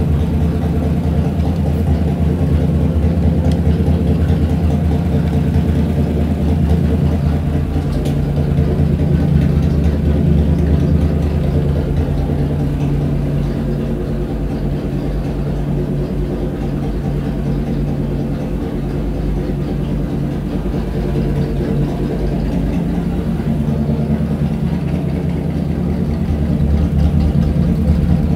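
Chevrolet 327 small-block V8 idling steadily on an engine dyno, warmed up.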